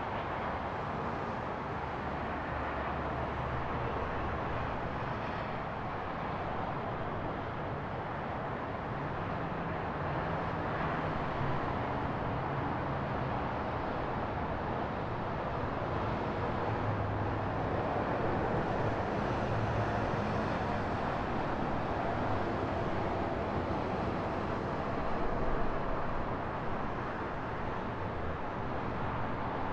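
Steady hum and hiss of road traffic.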